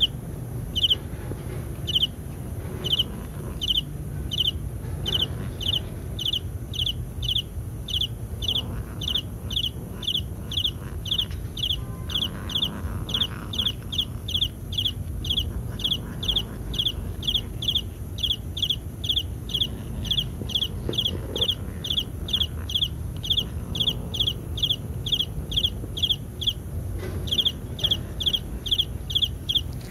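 A long run of short, high-pitched chirps repeating steadily at about two a second and speeding up a little, with a brief pause near the end before they resume, over a low steady rumble.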